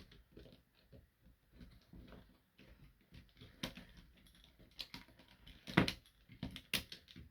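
Plastic transforming-robot toy parts being handled and snapped together: irregular small clicks and clacks, the loudest a little under six seconds in.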